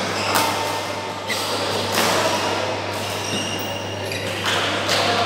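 Badminton rally in a large echoing hall: sharp racket strikes on a shuttlecock every second or two, over a steady low hum.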